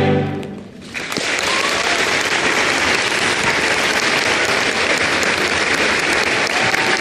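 A large choir's final held chord cuts off and fades in the gymnasium's echo, then audience applause breaks out about a second in and carries on steadily.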